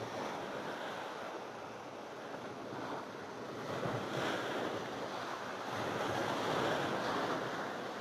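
Sea surf washing in against a seawall at high tide. It is a steady rush that swells about halfway through and again near the end as waves come in.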